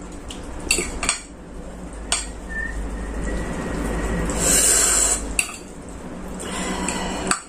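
A metal fork clinks against a plate a few sharp times in the first two seconds. Then come mouth sounds of eating noodles, with a longer hiss about halfway through and another near the end.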